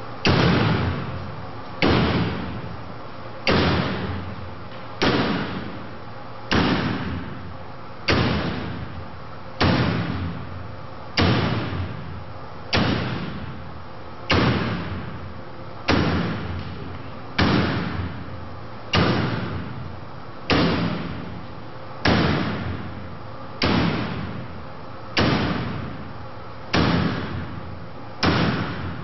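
An axe striking a hanging woven metal wire drapery again and again, about nineteen evenly spaced blows roughly a second and a half apart, each dying away over about a second.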